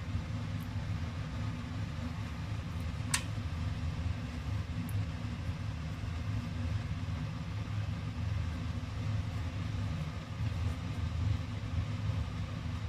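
A steady low mechanical hum runs throughout, with a single sharp click about three seconds in.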